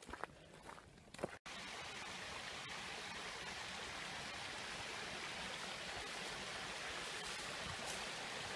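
Steady rush of water spilling from a stone fountain into a pond. It starts abruptly about a second and a half in, after a stretch of faint sounds.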